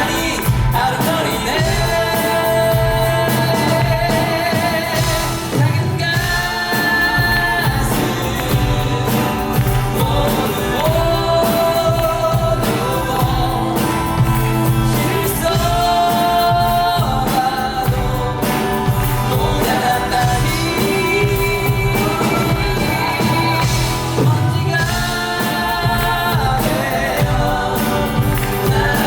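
Musical theatre cast singing live with band accompaniment, with long held notes and vibrato.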